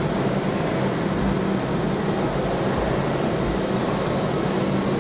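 Steady industrial hum and noise of a car assembly hall, a continuous machinery and ventilation drone with a low steady hum underneath.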